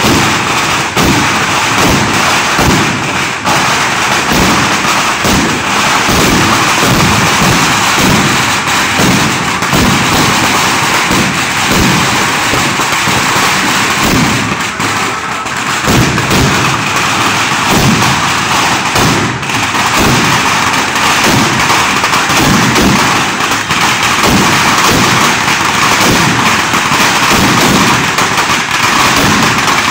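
Firecrackers going off in rapid, unbroken succession: a dense, loud crackle of bangs and deep thuds, easing only slightly about halfway through.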